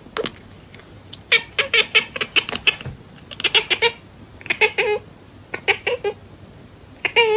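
A cat vocalising in several short bursts of quick, clipped calls, each burst a few rapid notes long.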